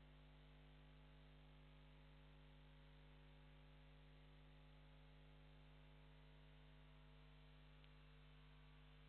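Near silence: a faint, steady electrical mains hum with a low hiss.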